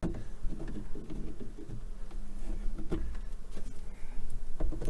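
Scattered small clicks and knocks of needle-nose pliers working the plastic retaining tabs of an RV roof vent fan cover, over a steady low hum.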